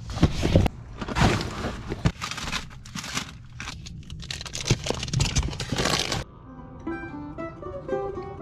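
Loud crunching and crinkling of bags and gear being handled, over a steady low hum. About six seconds in it cuts off suddenly, and light plucked acoustic guitar music begins.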